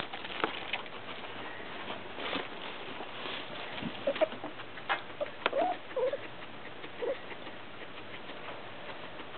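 Guinea pigs shuffling and rustling in wood-shaving bedding, with scattered short clicks. A few brief, soft squeaks come from a guinea pig in the middle.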